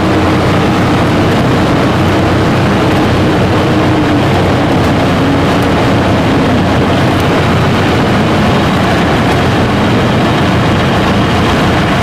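Paulistinha P-56C light plane's four-cylinder air-cooled engine and propeller running steadily, heard loud from inside the open-framed cockpit as the plane rolls along the runway. The engine's drone dips a little in pitch partway through.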